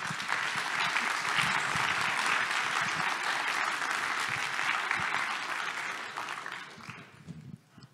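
Audience applauding, dying away over the last two seconds or so.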